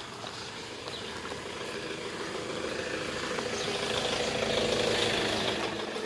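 A motor vehicle's engine running close by, growing louder to a peak about four to five seconds in, then easing off.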